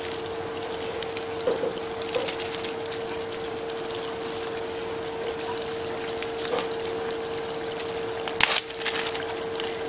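Onions, garlic and sauce cooking in oil in a stainless saucepan: a steady soft sizzling hiss with a constant hum beneath. A plastic bag rustles briefly about eight and a half seconds in.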